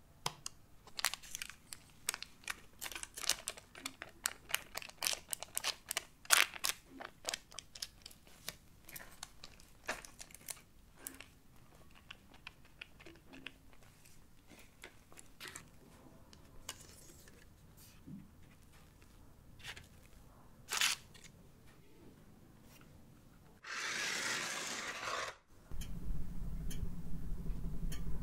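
A plastic bowl scraper spreading a light egg-white sponge batter over parchment paper: a run of crackly scrapes and ticks on the paper, thinning out after about twelve seconds. Near the end there is a burst of noise lasting about two seconds, then a convection oven's fan starts a steady low hum.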